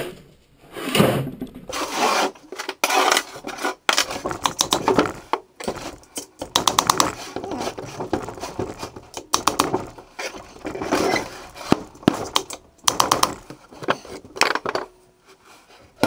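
Metal knocking, scraping and rattling in short bursts with brief pauses, as the end bell of an old capacitor-start electric motor is worked loose from its steel housing by hand.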